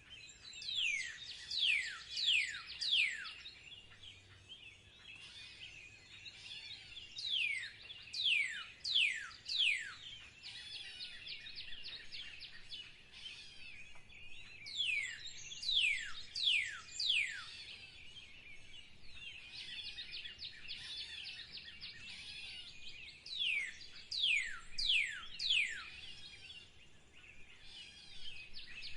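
A bird singing a phrase of four or five steeply falling whistles, repeated about every seven seconds, over a continuous background of other birds chirping.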